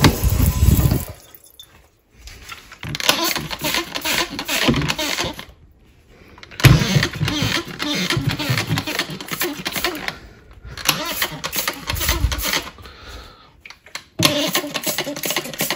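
Water from a kitchen sink sprayer hissing onto a stainless steel sink, cutting off about a second in. This is followed by several runs of rapid squirts from a hand trigger spray bottle, each run a few seconds long with short pauses between.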